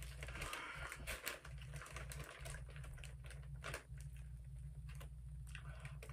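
Doritos tortilla chips being chewed, with soft crunching and many small sharp clicks, and the plastic chip bag crinkling as a hand rummages in it, over a steady low hum.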